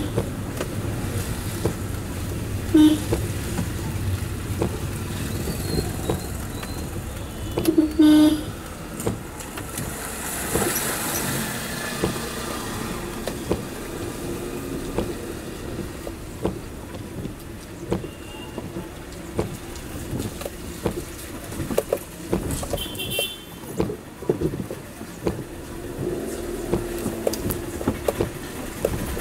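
Car driving through city traffic in monsoon rain, a steady road and engine noise with scattered ticks. Vehicle horns beep briefly several times, the longest about eight seconds in.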